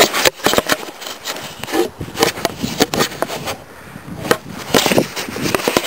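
Handling noise right on the camera's microphone: irregular, scratchy rubbing and scraping as something is pressed and moved against the camera.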